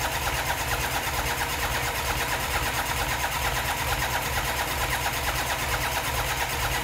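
Rotax 912 Xtra flat-four aircraft engine running steadily just after its first start, turning the propeller with an even, fast pulse.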